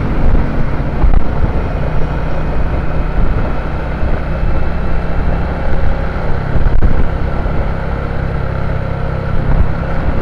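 Motorcycle engine running steadily on the move, with wind and road noise on the microphone.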